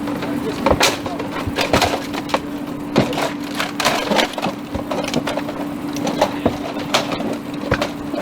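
Burnt wooden siding being pried and torn off a house wall, cracking and splintering in irregular snaps, while firefighters open up the exterior to check for fire extension. A steady hum runs underneath.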